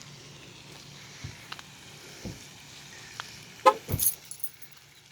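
Outdoor background of a steady low hum of road traffic under a faint hiss of splashing water, with scattered small knocks and one short loud bump a little past the middle.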